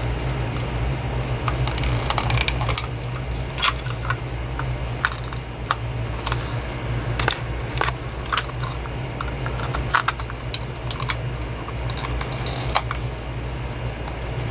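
Irregular small plastic clicks and taps from handling and fitting together the parts of a cordless phone handset, over a steady low hum.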